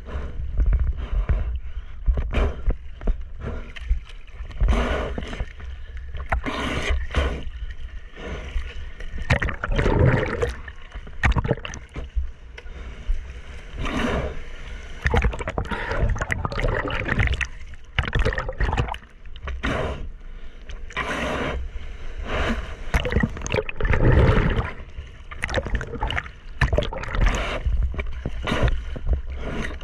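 Seawater lapping and splashing against a soft-top surfboard, heard close on a camera mounted on the board's nose: irregular splashes throughout over a steady low rumble.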